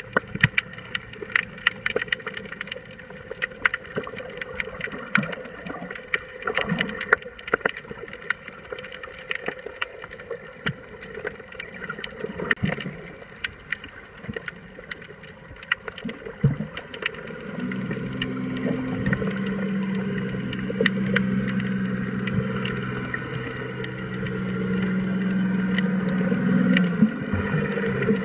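Underwater sound: a constant crackle of sharp clicks, joined about two-thirds of the way through by the steady hum of a boat's motor that grows louder toward the end.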